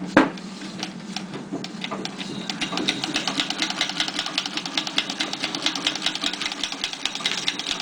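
1922 Singer treadle sewing machine being pedalled to wind a bobbin, with the handwheel released so only the bobbin winder turns. A sharp click at the start, then a rapid, even clicking rattle that speeds up over the first couple of seconds and then runs steady.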